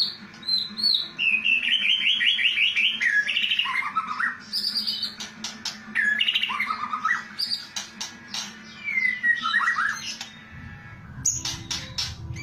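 White-rumped shama (murai batu) singing a varied song: a quick run of repeated notes, falling whistled phrases, and sharp crackling clicks in the kretekan style, with a short pause before the clicks return near the end.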